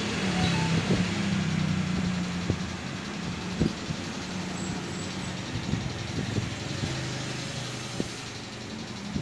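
A motor running with a steady low drone over a hiss, shifting down in pitch a little near the end, with a few light clicks and knocks on top.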